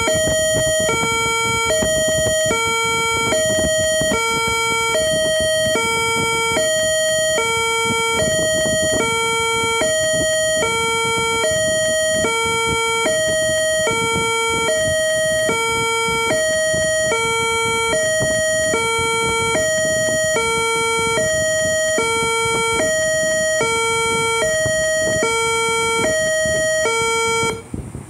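Whelen hi-lo warning siren tone played through a portable Bluetooth speaker: two pitches alternating high and low, each held about half a second, repeating evenly, then cutting off suddenly near the end.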